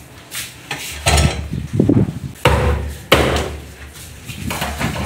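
A large knife chopping through a barracuda's neck on a wooden cutting board: several heavy chops, each a sharp knock with a short ring, to take off the head.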